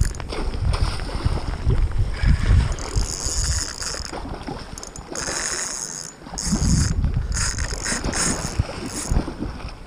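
Fishing reel winding in repeated short stretches against a hooked chinook salmon, with water splashing as the fish thrashes at the surface and wind buffeting the microphone.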